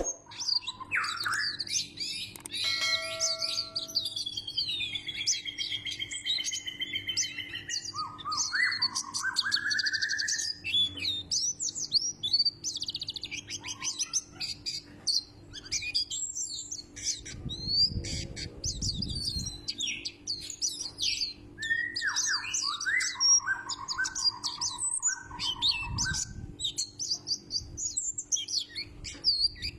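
White-breasted white-eye (pleci) singing: a fast, high run of chirps and twitters, broken by a few lower whistled phrases.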